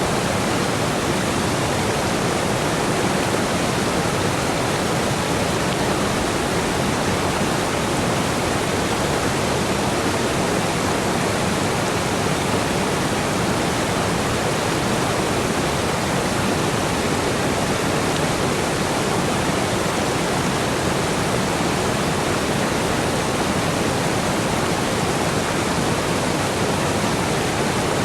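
Steady rush of flowing water, an unbroken even hiss with no separate splashes or other sounds.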